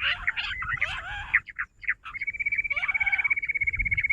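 Jungle bush quail calling: a jumble of short chattering calls, a brief gap about a second and a half in, then a fast, even trill of one repeated high note.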